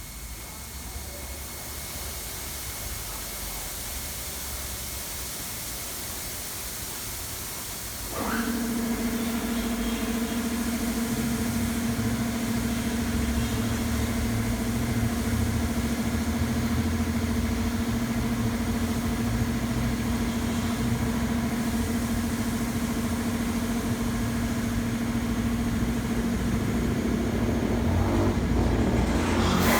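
A touchless car wash machine starts up about eight seconds in and then runs with a steady, even-pitched hum over a low rumble.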